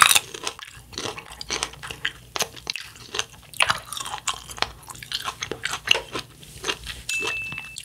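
A fresh cherry bitten into, one loud sharp bite at the start, then chewed with wet, crackly clicks, close to the microphone.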